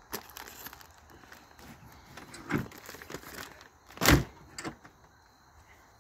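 A few scattered knocks and clunks, with one louder thump about four seconds in.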